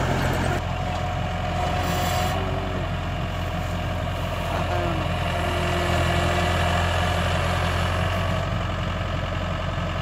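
Yanmar AG600A crawler combine harvester running, a steady low diesel-engine drone as it moves through standing rice.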